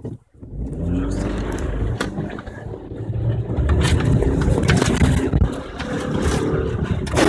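Four-wheel-drive car driving fast over a rough gravel track, heard from inside the cabin: a dense rumble of tyres and suspension with frequent knocks and jolts, and the engine running under load.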